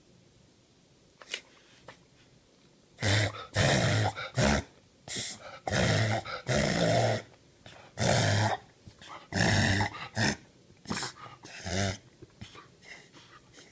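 A dog's breathing in loud, noisy spasms with a low buzz, coming in several bouts from about three seconds in, weaker bouts near the end, then quieter breathing. The owner suspects reverse sneezing.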